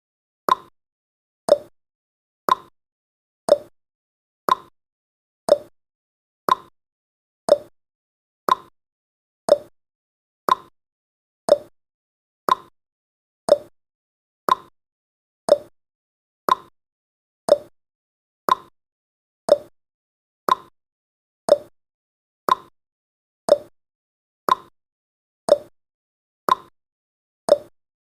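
Countdown timer's clock-tick sound effect: short, sharp ticks at a steady rate of one per second.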